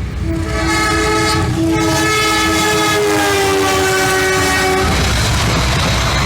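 Locomotive's multi-tone horn sounding one long blast of about four and a half seconds as the Semboyan 35 horn signal, dipping slightly in pitch near its end. Under it runs the rumble of the moving train, and once the horn stops the rushing, clattering noise of the passing train remains.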